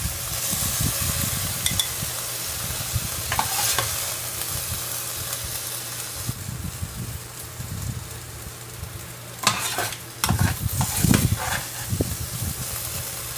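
Stir-fry sizzling in a pan while a spatula scrapes and scoops it out of the pan, the finished dish being taken off the heat. A run of louder scrapes and knocks comes about ten seconds in.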